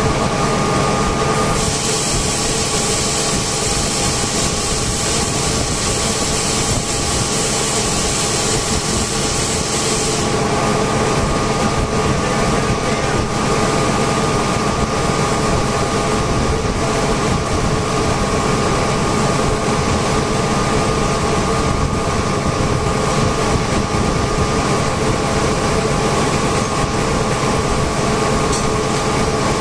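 Air compressor running steadily and loudly, a constant mechanical hum with steady tones in it. A high hiss rides over it from about two seconds in until about ten seconds in.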